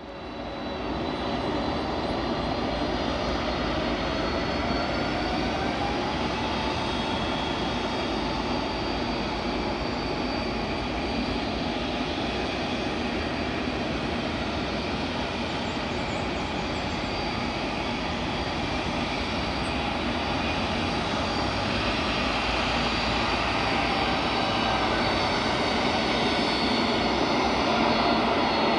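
Twin turbofan jet engines of a Boeing 767-300 freighter taxiing: a steady jet whine over a rumble. It grows a little louder near the end.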